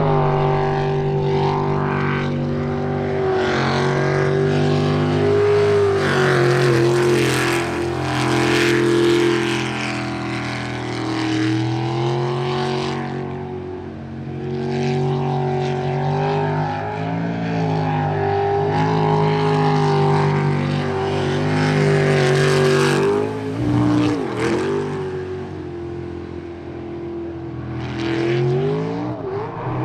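Jet sprint boat engine running hard through a timed run, its pitch repeatedly rising and falling as the throttle is worked through the turns, with stretches of loud hiss between.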